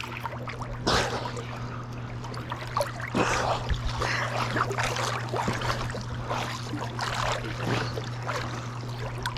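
Lake water splashing and sloshing under steady swimming strokes, in irregular splashes, over a steady low hum.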